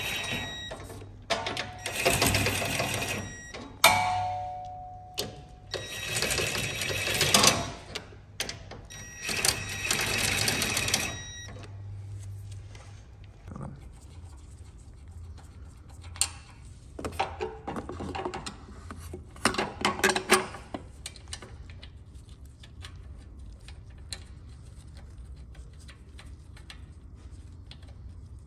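Cordless power tool spinning a socket on an extension bar, running the crash bar mounting bolts in with four short bursts over the first ten seconds or so, with a sharp metallic clink between them. Afterwards only quieter clicks of bolts and parts being handled.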